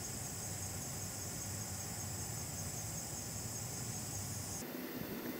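Steady chorus of insects in the trees, a high pulsing trill, over a low steady rumble. About four and a half seconds in the sound cuts off abruptly and the insect chorus jumps to a much higher pitch as the footage is played at double speed.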